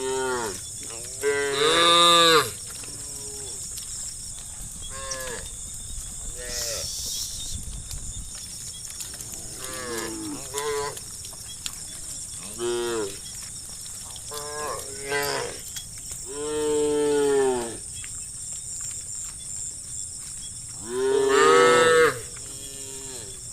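A herd of cattle mooing, with calls coming one after another and sometimes overlapping. Three long, loud moos stand out: one about two seconds in, one around the middle to late part, and one near the end. A steady high hiss runs behind them.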